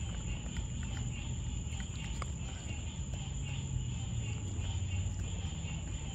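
Steady night chorus of crickets, a continuous high trill, over a low rumble, with a few faint clicks.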